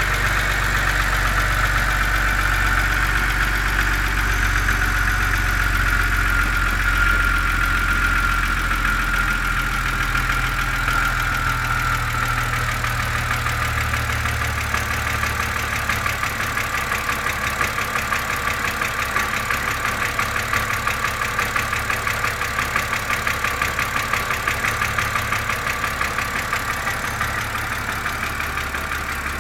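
BMW Z4 2.5si's straight-six engine idling cold, with a rapid, even ticking over the engine note: the cold-engine tick. A little past halfway the engine note drops lower as a high whine sinks slowly in pitch.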